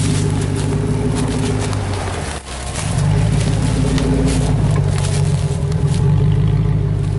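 Dodge Ram 2500 Power Wagon's Hemi V8 running at low revs through a side-exit exhaust as the truck crawls over rough ground, with a brief dip in the engine note about two and a half seconds in.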